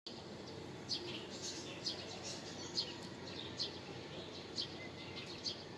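Small birds chirping: short, high, falling chirps about every half second, over a low steady background noise.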